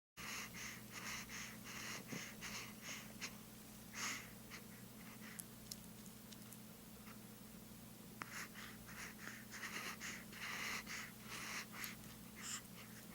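Rapid panting breaths in short puffs, about three a second, in two runs, the second starting about eight seconds in, over a steady low hum.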